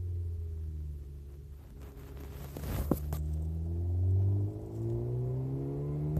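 1.4-litre turbo four-cylinder of a 2014 Dodge Dart Rallye with a custom dual exhaust, heard from inside the trunk while driving. Its low exhaust note falls in pitch, then climbs again as the car accelerates, with a brief rushing noise about two and a half seconds in.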